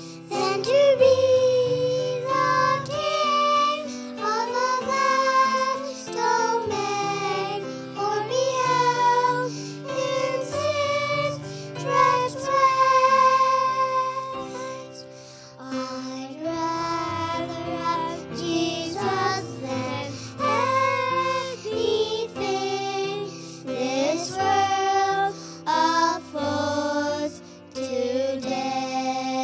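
Three young girls singing a song together into handheld microphones, accompanied by a grand piano.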